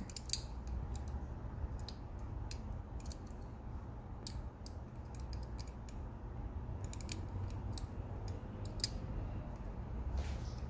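Irregular small metal clicks and taps from a Victorinox Swiss Tool Spirit multitool and its pocket clip being handled, over a faint steady low hum.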